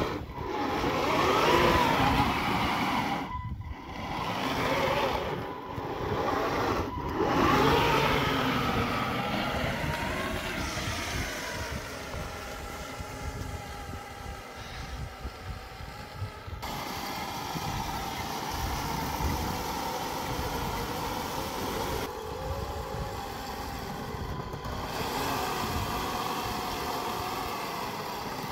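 1/10-scale RC Jagdpanther model tank driving through deep snow. Its motor sound rises and falls in pitch over the first several seconds, then runs steadier, changing abruptly twice in the second half.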